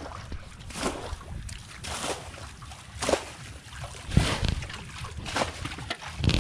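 Muddy water being bailed out of a ditch with a hand scoop: a splash and slosh about once a second.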